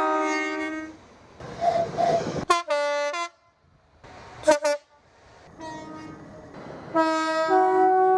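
British train horns in a run of short edited clips: a two-note blast, then a short higher-pitched toot a few seconds in, a very brief sharp blast, and a longer two-note blast near the end.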